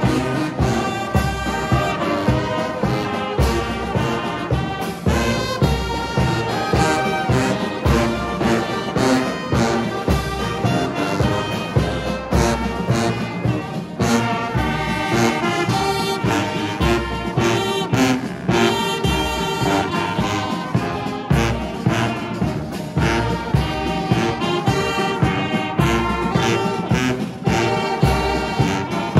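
Marching brass band playing live: trumpets, trombone and sousaphones playing a tune over a steady beat of bass drums.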